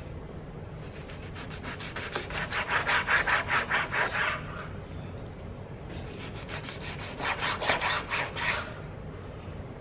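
A large knife sawing back and forth through food on a wooden cutting board, in two spells of quick rasping strokes: one starting about a second in, the other about six seconds in.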